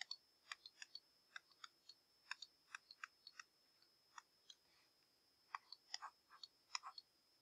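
Faint, irregular ticks of a stylus tapping on a tablet screen during handwriting, in two short spells with a pause between, over a faint steady high-pitched tone.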